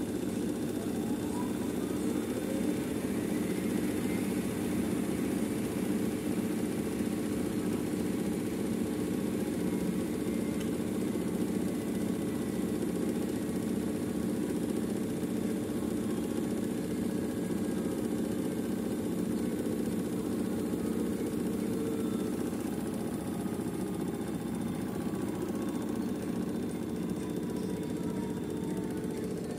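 Lavamac 11 kg commercial washer-extractor in its final spin: a steady hum from the spinning drum and motor, with a motor whine that rises over the first few seconds as the drum speeds up, then slowly sinks in pitch later on.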